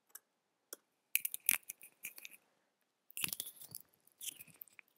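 Computer keyboard keystrokes and mouse clicks picked up close to the microphone, heard as a few short clusters of crackly clicks with a single sharp click at the end.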